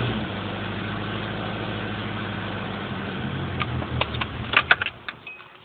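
Nissan SR20 2.0-litre four-cylinder engine idling just after a rev, with the weird idle and misfires that the owner reports. Near the end the engine sound drops away among a few sharp clicks.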